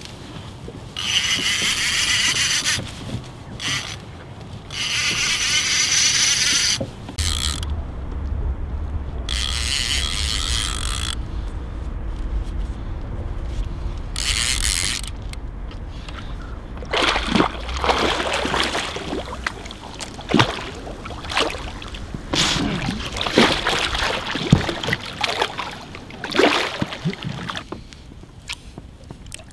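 Fishing reel ratcheting in several bursts of a few seconds each while a hooked wels catfish is played. Near the end, a run of knocks and splashes as the fish is brought alongside the inflatable boat.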